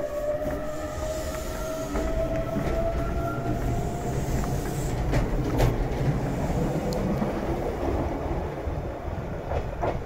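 Iga Railway electric train pulling away: the motors whine, rising slowly in pitch for the first few seconds as it accelerates. The whine then gives way to the rumble of the wheels, with a few sharp clacks from the rails as the cars pass.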